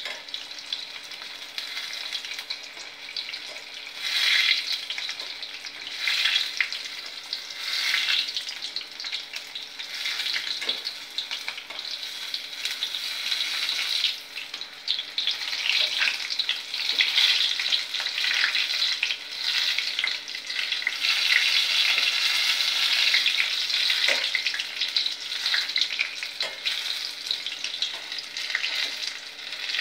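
Stuffed chapati pieces deep-frying in hot oil in a steel kadai, a steady sizzle that swells and eases repeatedly as a wire skimmer spoon moves them about, with a couple of light taps.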